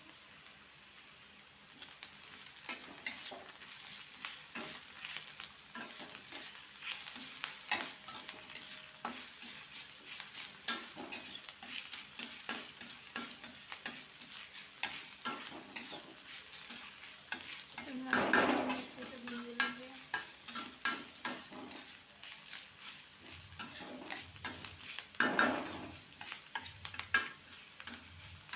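Chopped vegetables sizzling as they fry in a pan, stirred with a spatula that scrapes and taps against the pan again and again. There are two longer, louder scrapes, one a little past the middle and one near the end.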